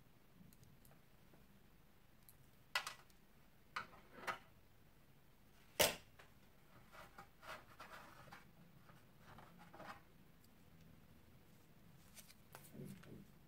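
Orange slime being squeezed out of a plastic piping bag onto a plastic tray: scattered sharp pops and clicks, the loudest about six seconds in, with a run of softer pops after it and a duller cluster near the end.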